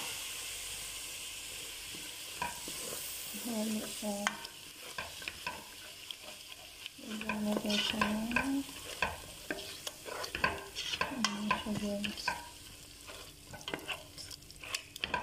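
Plastic spatula stirring a thick, sizzling tomato paste sauce in a stainless steel pot. The frying sizzle is strongest in the first few seconds, then gives way to repeated scraping strokes across the pot bottom, some of them squeaking, as the sticking paste is worked loose.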